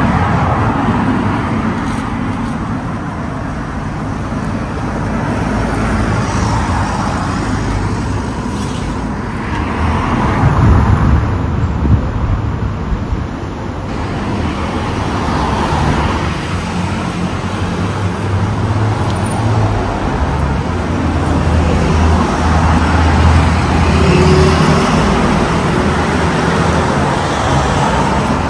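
Road traffic: cars driving past along the street one after another, the sound swelling and fading as each goes by over a steady low rumble of engines.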